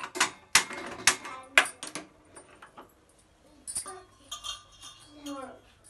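Stainless steel cookware clinking and clattering, with about five sharp metallic knocks in the first two seconds and fainter clinks after that.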